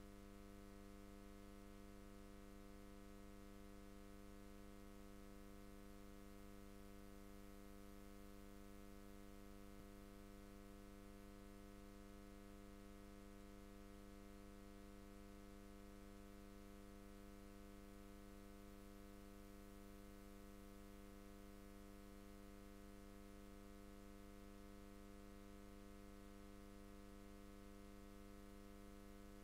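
Near silence: a faint, steady electrical hum with a buzz of overtones over light hiss, typical of mains hum on an idle microphone feed.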